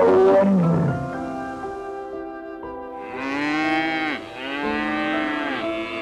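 Cattle mooing three times over soft background music: a loud call at the start that falls in pitch, then two calls that rise and fall in the second half.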